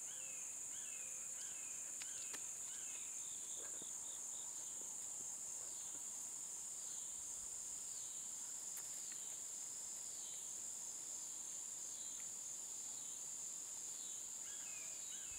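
A steady, high-pitched insect chorus running without a break, with a quieter chirping call repeating about twice a second near the start and again near the end, and a slower series of arching calls in between.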